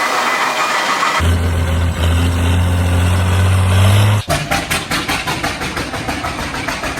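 Tractor engines running, in abruptly cut footage: a steady low drone for a few seconds, then a slow, even chugging from about four seconds in.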